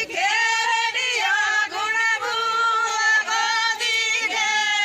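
Women singing a folk wedding song together in chorus, their voices sliding between notes over a steady held drone.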